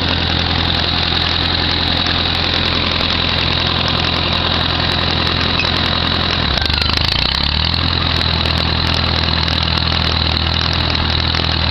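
Old Fiat crawler tractor's diesel engine running steadily. Its note dips briefly about halfway through, then settles back.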